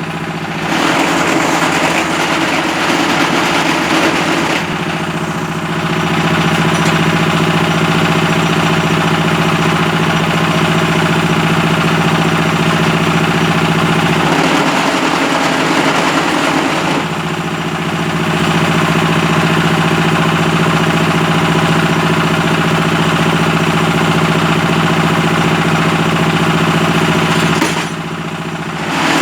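Concrete paving block (batako) making machine running, its vibrating mould unit giving a loud, steady mechanical hum. About every twelve seconds the sound drops and changes for a second or two before the hum resumes.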